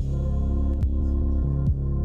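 Background music: a steady electronic ambient track with a low pulse about once a second.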